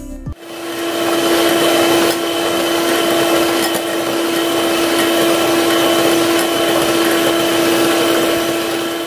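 Electric hand mixer running steadily, its twin beaters whipping chilled cream in a ceramic bowl: an even motor whine over a hiss of beating. It starts about half a second in.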